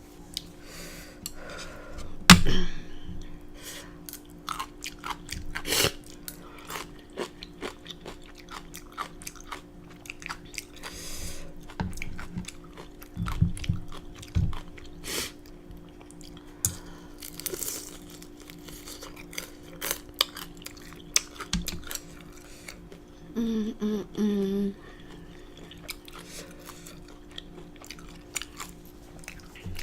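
Close-miked eating of spicy black bean noodles and fried dumplings: wet chewing, smacking and crunching, with a few sharper, louder bites. A short voiced sound comes near the end.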